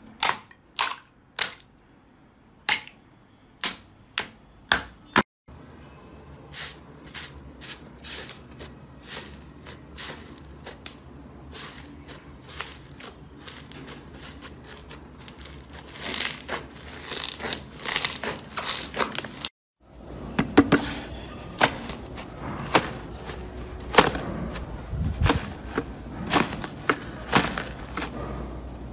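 Slime handled for ASMR. It opens with a few sharp cracks as a hammer breaks a plastic shell over slime. After that come many small crackling pops and squishes as hands press the slime, with bursts of denser crunching.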